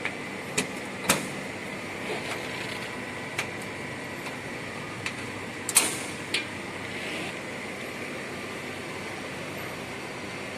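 A handful of sharp clicks and knocks, the loudest about six seconds in, from the latches and door of a screw compressor's control cabinet being opened. Under them runs a steady machine hum with a faint high whine.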